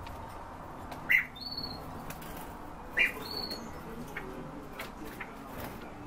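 Caged birds: two short, loud calls about two seconds apart, each followed by a brief higher note, with light clicks and wing flutters from birds moving about the cages.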